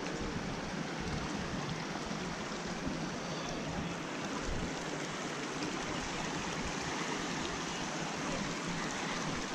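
Shallow water running over and between rocks: a steady wash of stream noise.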